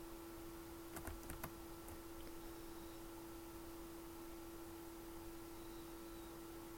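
A quick run of about five key presses on a computer keyboard, clustered about a second in, over a faint steady hum.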